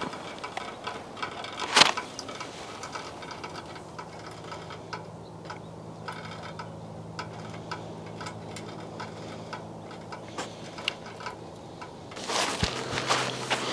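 Small kindling fire crackling as it catches, with irregular sharp pops, one loud pop about two seconds in. A faint low hum runs through the middle, and a louder stretch of noise starts near the end.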